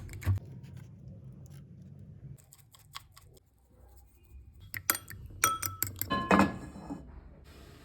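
Glass and ceramic kitchenware clinking and knocking: scattered light knocks, then a quick run of ringing clinks about five to six and a half seconds in.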